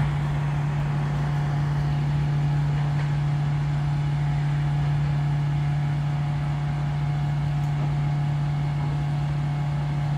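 Motor vehicle engine running steadily, a constant low hum that does not rise or fall.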